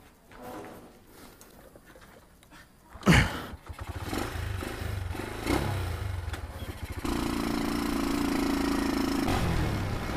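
A sharp thump about three seconds in, then a motorcycle engine running as the bike pulls away, settling into a steady louder drone about seven seconds in as it rides along.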